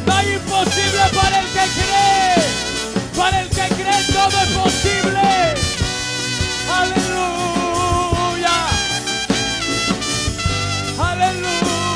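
Live band music with a brass melody over a steady beat.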